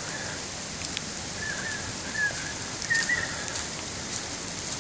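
Steady rushing noise of heavy rain and a fast-flowing, flood-swollen creek, with faint scattered drop clicks. A bird chirps a few short high notes around the middle.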